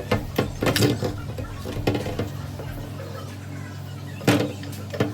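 A steady low hum with a scattering of sharp knocks and clicks, the loudest about four seconds in.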